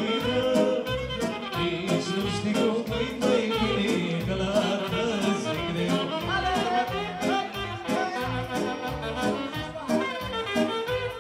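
Live party dance music with a steady beat and a lead melody, a singer performing with the band.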